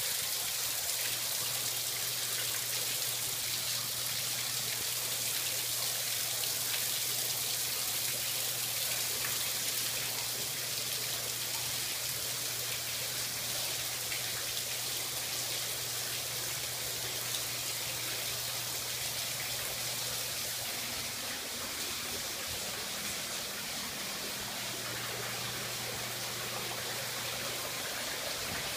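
Storm water running in through brick basement walls into a flooded basement: a steady rushing and trickling of water, leaking in faster than the sump pump can clear it. A low steady hum runs underneath, cuts out about two-thirds of the way through and comes back a few seconds later.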